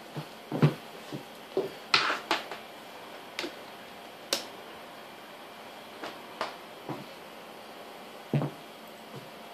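Scattered knocks and clicks of handling: a network cable being moved over a laptop and plugged into its side port, the plug and hand tapping on the laptop's plastic case and the wooden table. The knocks come at irregular intervals, the loudest cluster about two seconds in.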